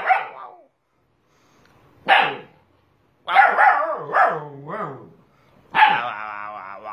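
A husky-type puppy barking and yowling: a short yap about two seconds in, then a run of quick calls that bend up and down in pitch, and a longer wavering howl-like call near the end.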